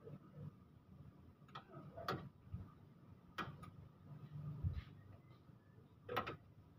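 Faint, scattered metal clicks and knocks, about five at irregular intervals, from tools and parts being handled on an engine during timing belt removal.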